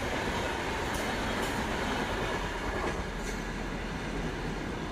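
Express train's passenger coaches rushing through a station at speed, wheels clattering over the rails, easing off a little about three seconds in as the end of the train goes by.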